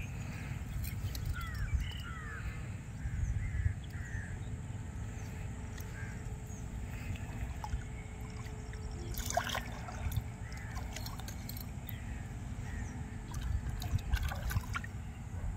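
Birds calling several times in the first four seconds over a steady low rumble, with light splashing from a hooked carp thrashing at the surface and one sharp splash-like noise about nine seconds in.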